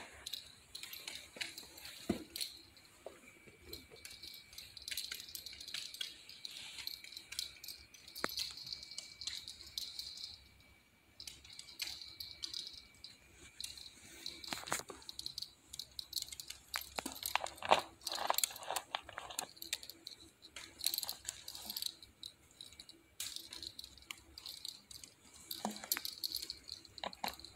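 A small Chorkie dog's claws clicking and skittering on a hardwood floor as it moves about hunting, a scattered run of light ticks and taps that is busiest past the middle.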